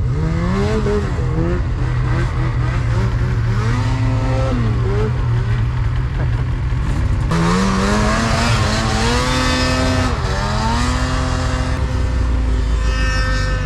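Snowmobile engine revving in short throttle blips, the pitch rising and falling. About halfway in it gets louder with a hiss over it, climbs in a longer rev and then holds a steady pitch.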